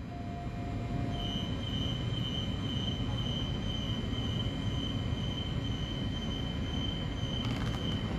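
Transperth electric train standing at the platform with its equipment giving a steady low hum, while a steady high-pitched tone sounds from about a second in. Near the end there is a short clatter as the doors close.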